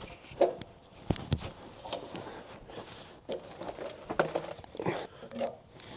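Scattered knocks and scrapes, a dozen or so short irregular clunks and rubbing noises, with no engine or saw running.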